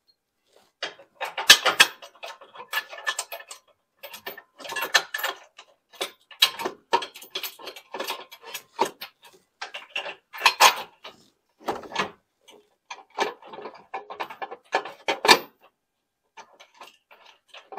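Short bursts of light metallic clicking and clanking, on and off, from bolts and hand tools being worked as control-arm mounting bolts are put in. The sharpest knocks come about a second and a half in and again near the middle and the end.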